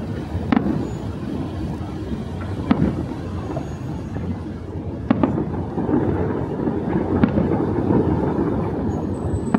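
Fireworks show bursting: a continuous low rumble with several sharp bangs a couple of seconds apart.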